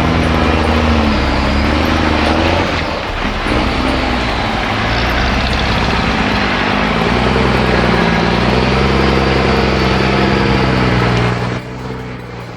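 Mercedes-Benz Kurzhauber truck's diesel engine labouring under a timber load, its pitch rising and falling as it is revved, over a dense rushing noise. The sound drops in level near the end.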